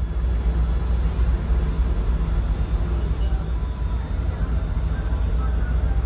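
Steady low rumble of a passenger ship's engines and machinery heard on board, with a faint steady high whine above it.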